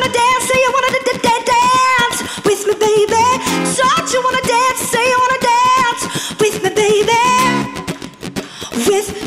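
Female lead vocalist singing a live pop song with band accompaniment, her voice sliding through ornamented runs.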